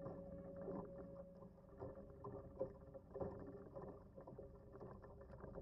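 Small waves lapping against a canoe hull: soft, irregular little slaps and splashes, with a faint steady hum underneath.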